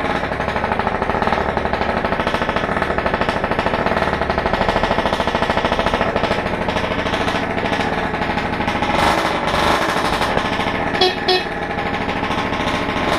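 MBK Booster Spirit's 50 cc two-stroke scooter engine running with a loud, rapid rattling buzz. It is too loud because the exhaust silencer's packing has burnt out, which the owner takes for an empty silencer cartridge. The engine is briefly louder about nine seconds in.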